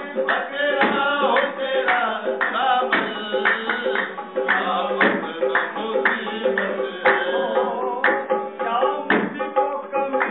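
Live qawwali: a hand-pumped harmonium holding steady chords under a man's singing voice, with sharp hand-claps keeping the beat.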